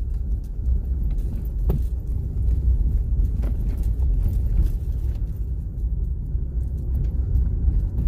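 Low, steady rumble of a vehicle driving slowly over a dirt lot: engine and tyre noise, with a couple of faint knocks about two and three and a half seconds in.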